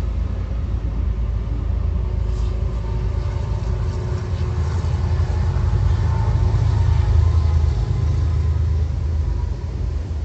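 Diesel freight locomotives rumbling past, a Union Pacific unit and a CSX unit. The rumble is loudest about six to seven seconds in as they pass, then eases as the tank cars follow.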